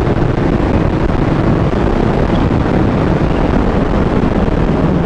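Steady wind rush on a riding microphone, with a Kawasaki Ninja H2's supercharged inline-four engine running underneath at a steady pace.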